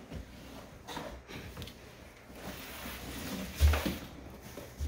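Cardboard scraping and rustling as a large telescope box is slid up out of its outer shipping carton, with one dull thump about three and a half seconds in.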